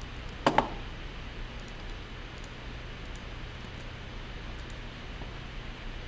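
Computer mouse and keyboard clicks: two sharp clicks close together about half a second in, then faint scattered clicks, over a steady low hum.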